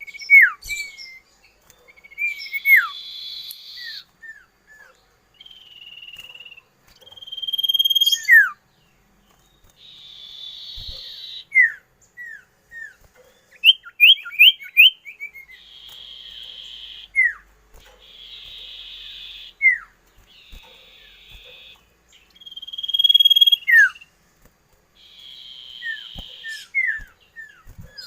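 A songbird singing a varied song in phrases: quick runs of short notes, sharp whistles sliding steeply down, held whistled notes, and raspy buzzing stretches each lasting a second or two, separated by short pauses.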